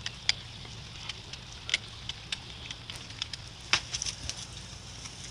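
Dog chewing and tugging at a thick, frayed rope: scattered crackling clicks from teeth and rope fibres, the sharpest about three-quarters of the way through.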